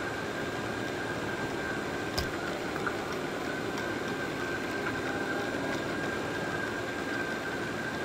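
Robot vacuum running close by: a steady whirring hiss with one constant high whine, and a single sharp click about two seconds in.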